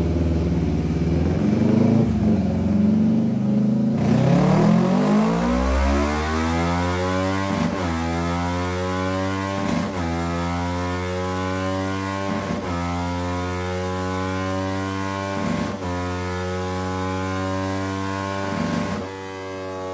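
Kawasaki Ninja 500 parallel-twin engine revving up, its pitch climbing steeply for a few seconds, then running at a steady high pitch with brief dips every two to three seconds.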